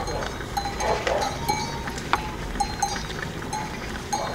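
Bells on a herd of cows and goats clanking irregularly as the herd walks, with one sharp knock about two seconds in.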